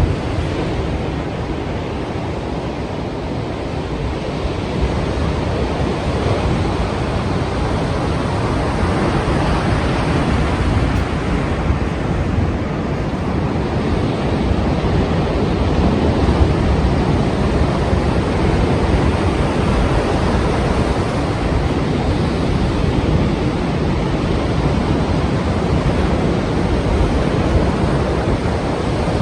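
Strong sea waves breaking as surf: a continuous rushing wash that swells slightly in loudness toward the middle, with some wind.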